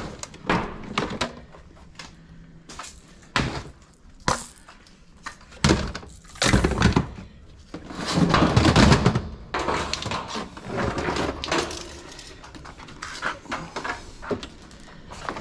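Hard objects clattering and knocking as items are moved and shuffled about, in a run of separate short knocks, with a longer, louder scraping rustle about eight seconds in.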